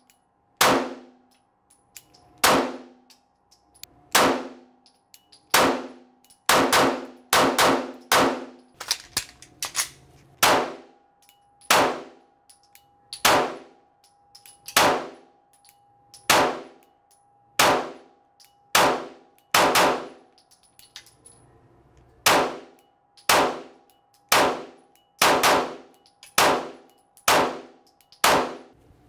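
FN 509 9mm pistol firing a steady string of single shots, roughly one a second, with quicker doubles and triples around a quarter of the way in and near the end and a short pause past the middle. Each shot is sharp and echoes, and a metallic ringing tone hangs between the shots.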